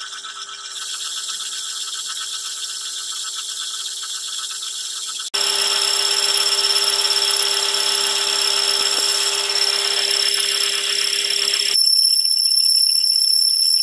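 Metal lathe turning a steel paper-plate die while a carbide tool takes a facing cut across its face, to restore the square cutting edge. Steady high-pitched ringing over cutting noise, which jumps louder about five seconds in and shifts again near the end.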